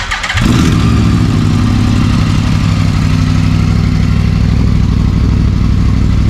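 Yamaha R1 "big bang" (crossplane) inline-four starting: the electric starter cranks briefly, then the engine catches about half a second in and settles into a steady idle. It runs through an aftermarket carbon-fibre exhaust with its silencer inserts fitted.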